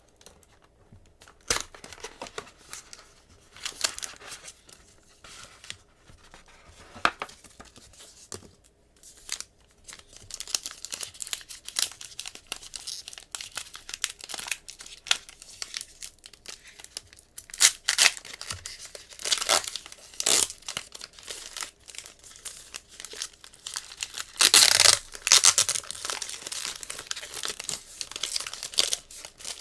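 Trading-card box packaging being torn open and crumpled: irregular crinkling and ripping that grows busier partway through, with one longer, louder tear near the end.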